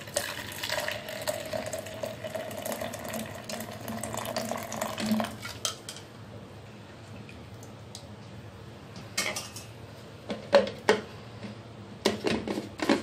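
Hot tea being poured through a strainer into a thermos flask, a steady pour lasting about five seconds. After it come a few sharp clinks and knocks of metal kitchenware, twice near the end.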